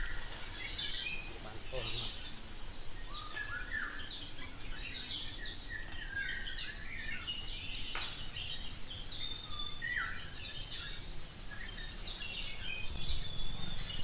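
Outdoor nature ambience: a steady, high, fast-pulsing insect trill runs without a break, with scattered short bird chirps over it.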